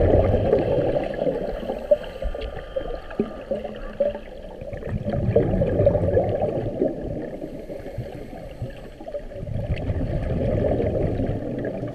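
Muffled sea water sloshing and gurgling, swelling and fading unevenly.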